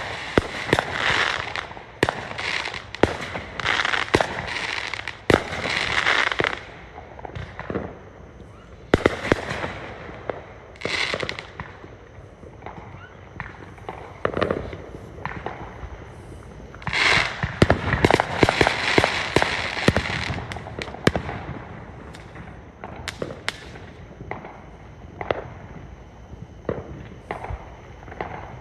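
Fireworks going off: many sharp bangs with spells of dense crackling. The crackling is busiest in the first few seconds and again a little past the middle, with scattered single bangs between.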